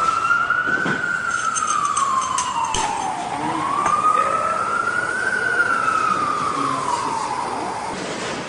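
Emergency vehicle siren wailing, its pitch rising and falling slowly twice, with a few short clicks.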